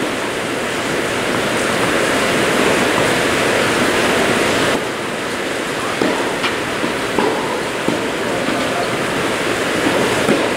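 Steady loud rushing noise, with the sharp pop of a tennis racket striking the ball on a serve about six seconds in and a few fainter ball hits after it.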